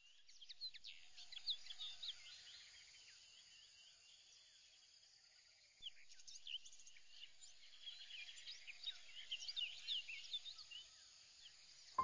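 Faint birdsong: many small birds chirping and twittering in quick, overlapping calls, easing off in the middle and picking up again about six seconds in.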